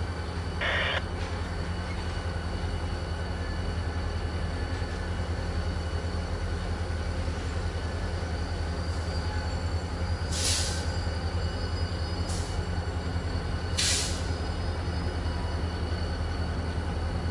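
Diesel freight locomotive's engine running with a steady low drone as it moves slowly toward the camera. Short hisses sound about a second in, twice more around the middle, and once again toward the end.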